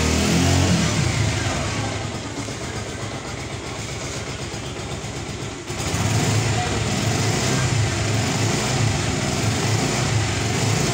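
Bajaj Pulsar 150 Twin Disc's air-cooled single-cylinder engine, revved briefly at first and then running steadily. About six seconds in it becomes louder and stays steady.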